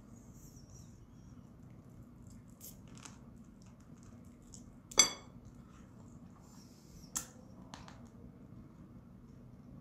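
Quiet eating sounds: chopsticks working at a plate of spicy marinated crab, with a few small clicks and soft mouth noises. A sharp ringing clink of chopsticks against the dish about five seconds in, and a lighter one a couple of seconds later.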